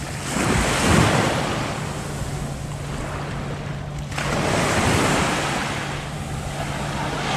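Surf washing onto a sandy beach, with waves breaking and swelling about a second in and again about four seconds in. Wind buffets the microphone, and a steady low hum runs underneath.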